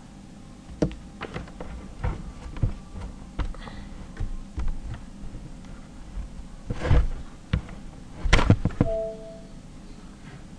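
Scattered light knocks and clicks, with a louder cluster of thumps about eight seconds in, followed by a brief tone.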